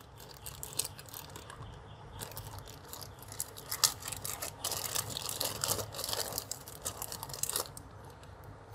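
Clear plastic pouch crinkling and crackling as hands open it and work the USB cables out, in irregular bursts that grow busiest about halfway through.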